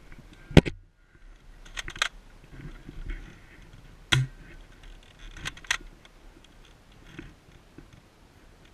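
A handful of sharp clicks or snaps at irregular spacing, the loudest about half a second in, with light rustling between them.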